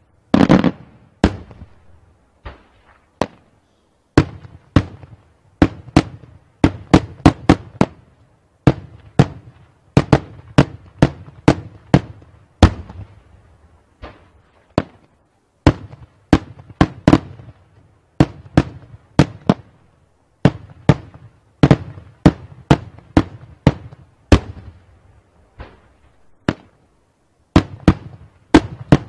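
Daytime fireworks: aerial shells bursting overhead in a long, irregular string of sharp bangs, sometimes several a second, each with a short echo. A heavier boom comes right at the start.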